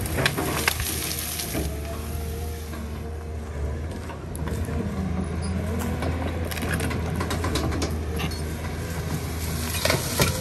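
Tracked hydraulic excavator's diesel engine running steadily under load while its bucket pushes into and tears out bushes, with scattered sharp cracks and snaps of branches breaking.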